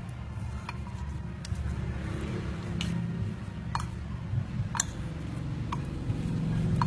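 Chopsticks and a metal spoon tapping and clinking against a ceramic bowl while shredded sweet potato is mixed with batter. Sharp ticks come roughly once a second.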